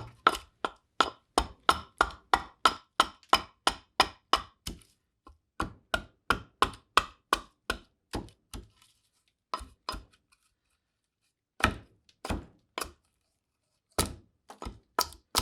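Hatchet chopping into a green black walnut bowl blank: quick, sharp strikes about three a second, breaking off in short pauses a few times and starting again.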